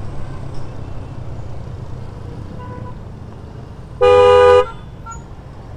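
A vehicle horn giving one loud honk, about half a second long, some four seconds in, over the steady engine and road rumble of a motorcycle riding in traffic.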